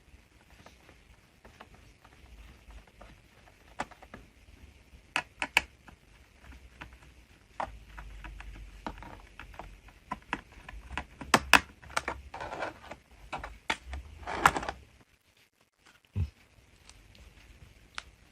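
Scattered small clicks and taps of a screwdriver working on the plastic underside of a Dell Latitude 3540 laptop as the two screws of its access cover are undone, with two short scraping rustles near the end as the cover is worked off, and a single thump just after.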